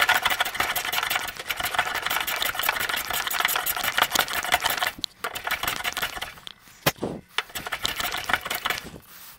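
A plane shaving wood to trim it flush underneath. There is a dense, continuous scraping stretch for about five seconds, then shorter strokes with gaps toward the end.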